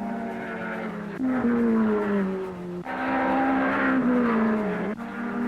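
Late-1950s racing car engines at high revs going past one after another, each engine note sliding down in pitch as the car goes by. The sound changes abruptly from one car to the next every second or two.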